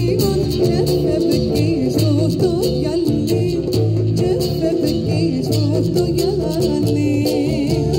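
Live band playing Cypriot music: plucked strings over a steady bass rhythm with a regular beat.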